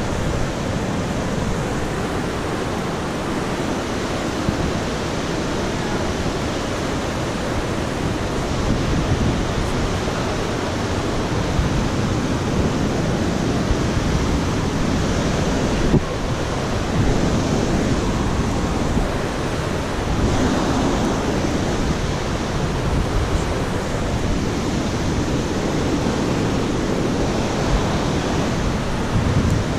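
Steady rushing of a fast mountain creek, an even hiss with no breaks.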